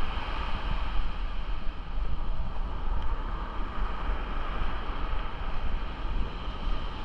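Wind buffeting the microphone in a steady low rumble, over the even hiss of ocean surf breaking on the beach.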